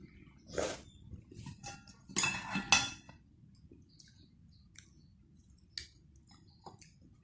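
Close-up eating sounds of cheese ramen: a short slurp about half a second in, a louder wet slurp of noodles between two and three seconds in, then small clicks of chewing and utensils.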